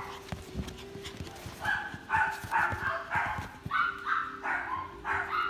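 Puppy yapping, a run of short high-pitched barks about one every half second, starting about a second and a half in after some light taps.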